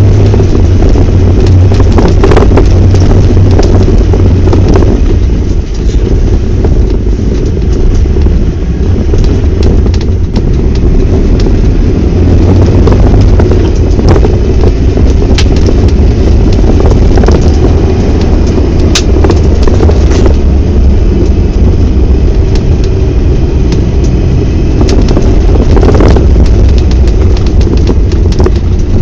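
Iveco Massif 3.0 HPT's four-cylinder turbodiesel running steadily under way on snow, heard from inside the cab as a loud, deep drone, with scattered short knocks and clicks over it.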